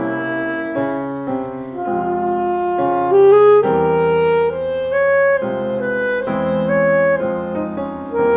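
Saxophone playing a melody of changing notes, with piano accompaniment.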